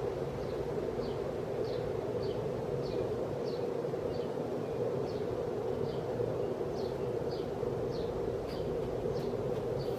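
1979 52-inch Envirofan ceiling fan running steadily on high speed, a pretty loud motor hum, with faint high chirps repeating about every half second to second.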